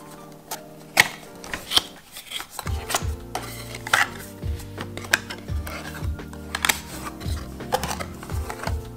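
Handling noise of a scented candle being unboxed: sharp clicks and taps as the cardboard box flaps are opened and the candle and its printed tin are handled, over background music.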